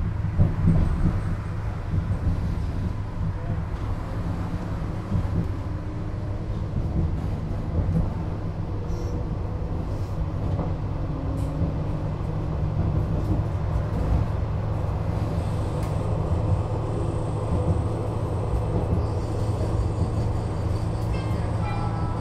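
Duewag B80C electric light-rail car running along the line: a steady low rumble of wheels and running gear with a continuous hum and occasional small clicks.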